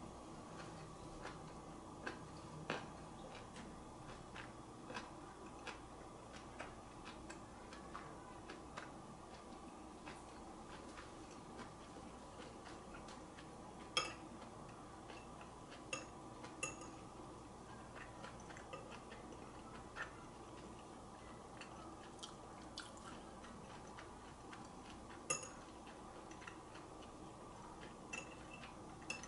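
Chopsticks clicking and clinking now and then against ceramic bowls and plates while eating, with sharper clinks about 14 seconds in and again near 25 seconds, over a faint steady hum.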